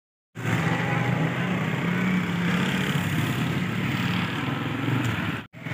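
Road vehicle on the move: a steady engine hum under wind and road noise. It starts abruptly a moment in and cuts out briefly near the end.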